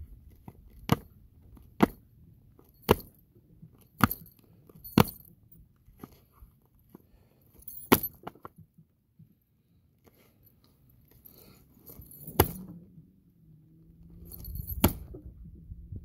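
Frozen lake ice giving sharp cracks and pings: five about a second apart, then three more spaced several seconds apart. A low rumble rises near the end.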